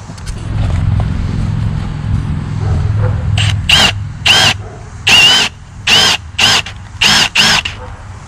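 Cordless drill boring pilot holes in treated pine 2x4 posts, in about seven short trigger pulls. Each pull is a whine that rises and falls as the motor spins up and slows. Before them there are about three seconds of low rumble.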